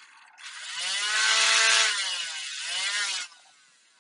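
Nerf Rival Hera's flywheel motors, powered at nearly 7 volts, spinning up with a rising whine about half a second in and running loud. They dip and pick up again, then cut off a little after three seconds in and wind down.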